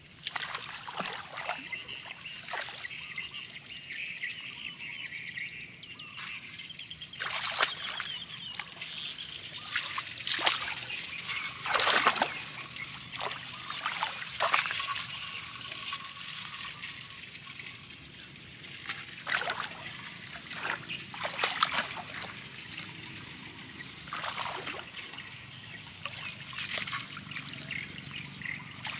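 Hands splashing and sloshing in shallow muddy water among grass, in irregular bursts, as someone gropes for crabs by hand.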